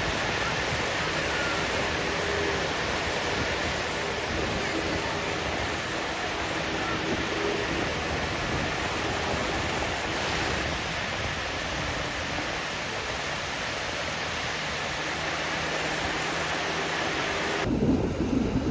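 Steady wash of sea surf on a beach. About a second before the end it gives way to a louder, uneven low rumble.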